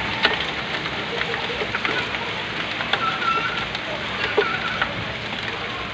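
Heavy rain pouring down steadily, with scattered sharp ticks of drops striking hard surfaces.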